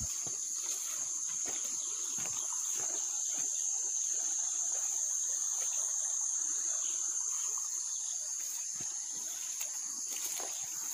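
A steady, high-pitched insect drone, unbroken throughout, with light rustling through tall grass.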